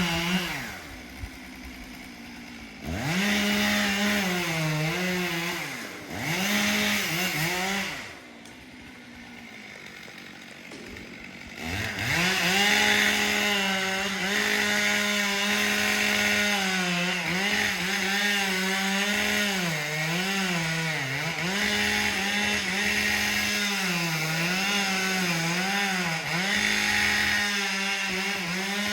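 Chainsaw running at full revs and cutting wood, its pitch sagging again and again as the chain bogs in the cut. Twice it drops back to idle for a few seconds and then revs up again.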